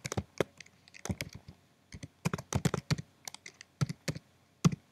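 Typing on a computer keyboard: irregular keystrokes with short pauses, and a quicker run of keys about two and a half seconds in.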